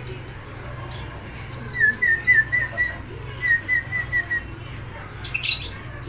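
Canary chirping in two quick runs of about five short, evenly spaced chirps, with a brief rustle near the end and a steady low hum underneath.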